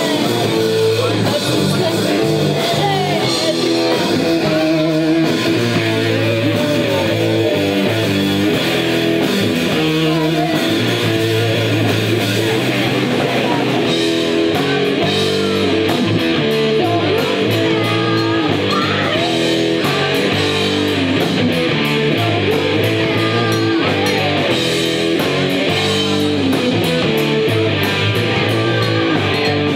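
Rock band playing live with electric guitar, bass guitar and drums, loud and steady, the cymbals coming through more strongly from about halfway in.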